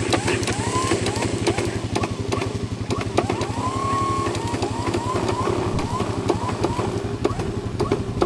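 A small petrol engine running steadily nearby with a fast, even pulse. Over it comes a run of short, high, arching squeals, one held longer about four seconds in.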